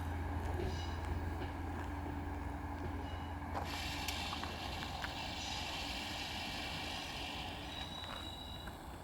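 Steam tank locomotive 141 TB 424 and its train running, a steady low rumble, with a hiss that comes in about three and a half seconds in and stops about four seconds later.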